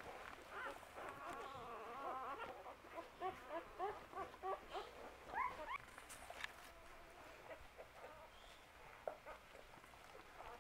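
Five-day-old English setter puppies squeaking and whining in many short, rising cries that overlap one another, dying down after about six seconds to a few faint squeaks.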